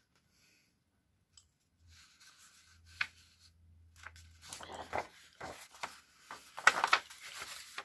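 Sheets of paper being handled and shuffled on a craft table: quiet at first, then soft rustling with a single click about three seconds in, and crisp crackles of the paper from about halfway on, loudest near the end.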